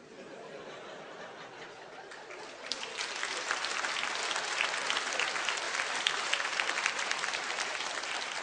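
Theatre audience applauding. The clapping grows louder about three seconds in.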